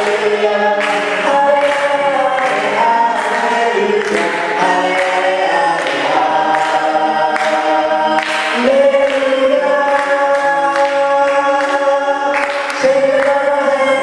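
Choir singing a hymn in several voice parts, with long held notes and no drums.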